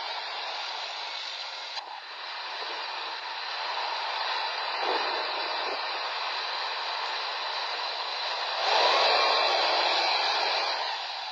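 T-72 tank's V12 diesel engine and tracks running, heard through thin, hissy old film sound with no bass. The engine noise swells louder about nine seconds in as the tank crosses a ditch, then eases off.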